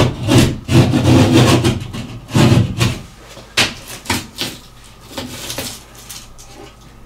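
Drywall being cut by hand with a utility knife: several scraping strokes through the board for the first three seconds, then a few sharp knocks and one more short scrape as the cut-out panel is worked loose.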